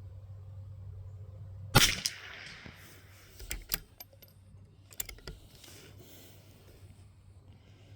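A single shot from a .22 LR bolt-action rifle about two seconds in, followed by a few sharp metallic clicks as the bolt is worked to eject the case and chamber the next round.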